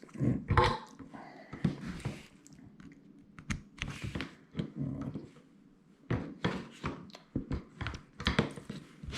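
Irregular knocks and clicks of tools and a connector being handled and set down on a workbench while getting ready to solder.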